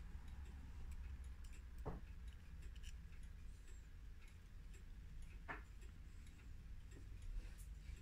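Faint small clicks and ticks of a pendulum clock's brass movement being handled and its parts worked by hand, with two sharper clicks about two seconds and five and a half seconds in, over a low steady hum.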